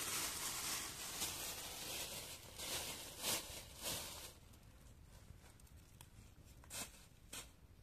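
Fresh wild bitter lettuce rustling as a pile of leaves is handled, with crisp snaps as a knife cuts through the stems. The rustling dies down about halfway through, leaving two separate snips near the end.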